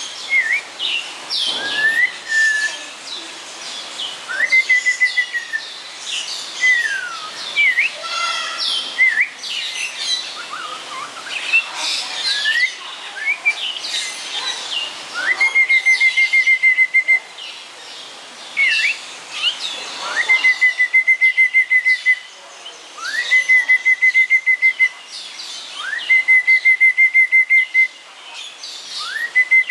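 Snowy-crowned robin-chat singing: varied phrases of rising and falling slurred notes, then from about halfway a repeated phrase of a quick upward slur into a rapidly pulsing note held steady for a second or two, given about five times.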